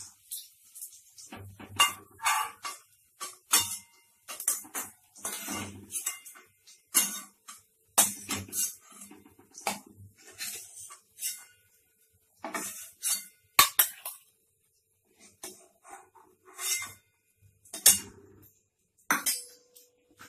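A cooking spoon scraping and clinking against a pan again and again at an irregular pace, as fried onions are lifted out of the oil.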